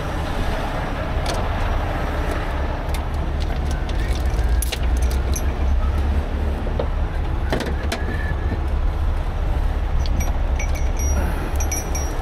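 Steel rigging chains clinking and rattling in irregular clinks as they are handled in a tow truck's side compartment, over a steady low engine rumble.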